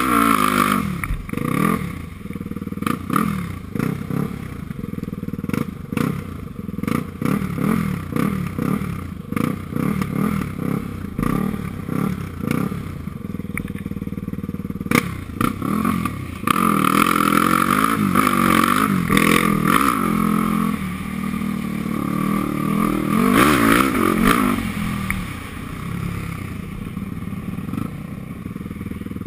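Off-road vehicle's engine revving up and falling back over and over as it is ridden along a bumpy trail, loudest in the second half, with wind on a helmet-mounted camera and rattles and knocks from the rough ground.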